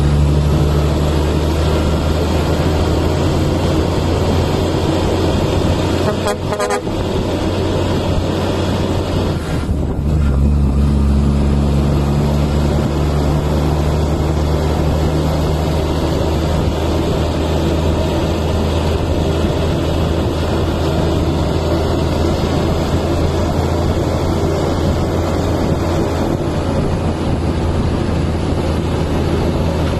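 Kenworth T800 tractor's diesel engine and exhaust stacks running steadily as the truck drives. The engine note breaks off briefly about six seconds in and again near ten seconds, then comes back stronger.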